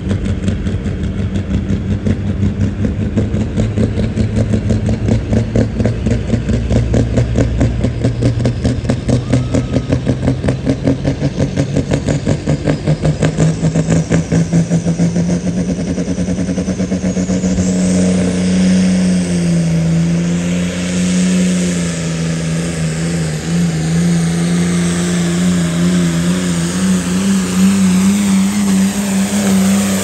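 Turbocharged diesel engine of a Ford TW-10 hot farm pulling tractor building RPM at the line, its pulsing note slowly rising in pitch, with a rising turbo whine about halfway. In the last third it runs at high RPM under load, pitch wavering, as the tractor pulls the sled.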